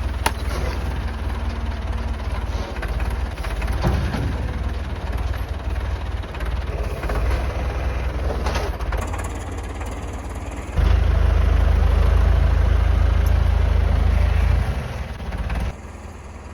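Tractor engine running steadily with a heavy low rumble, getting louder for a few seconds past the middle and then dropping away near the end.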